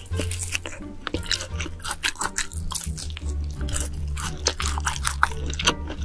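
Close-miked mouth sounds of a big bite and wet chewing, with many short smacking clicks, over background music with a steady low bass line.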